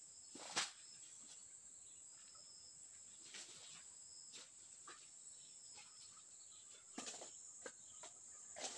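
Steady high-pitched insect chorus of the tropical forest, with scattered crackles and snaps of dry leaves and twigs under a person's footsteps, the sharpest about half a second in and a cluster near the end.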